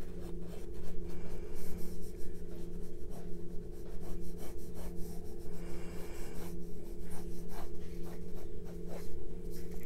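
Graphite pencil scratching on paper in many quick, repeated strokes, over a steady low hum.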